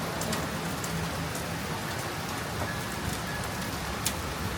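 Rain falling in a sudden shower: a steady hiss with scattered sharp drop ticks, over a low steady hum that fades out about a second and a half in.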